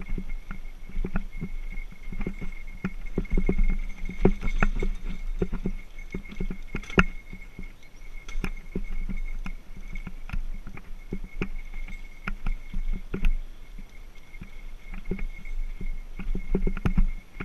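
Mountain bike rolling over bumpy dirt and grass singletrack, its frame and parts rattling with frequent sharp knocks from the bumps, the sharpest about seven seconds in. A bear bell jingles steadily throughout.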